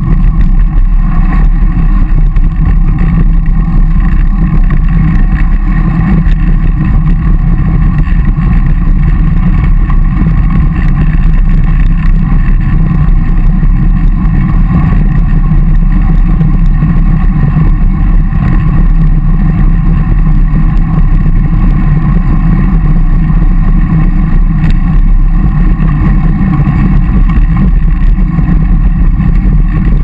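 Steady, loud low rumble of wind and road vibration on the microphone of a camera mounted on a moving road bike.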